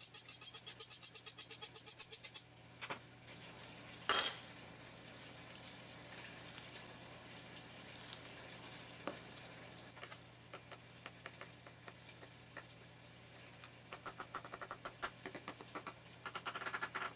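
Chef's knife honed on a sharpening steel: a fast, even run of metal strokes, about nine a second, for the first couple of seconds. A single loud knock follows about four seconds in, then quiet handling while garlic is peeled, and near the end a run of quick knife strokes chopping garlic on a wooden cutting board.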